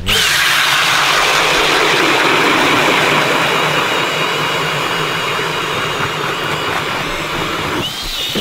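Cordless drill driving a red ice auger through lake ice: a loud, steady grinding rush of the blade cutting ice, with the drill motor's whine over it. The whine bends in pitch near the end.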